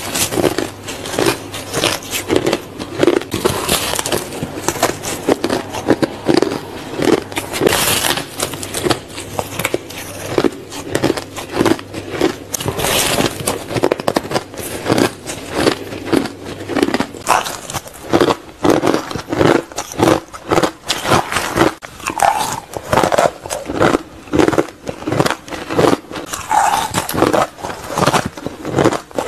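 Shaved ice being bitten off and chewed: a dense, irregular run of crunches, several a second.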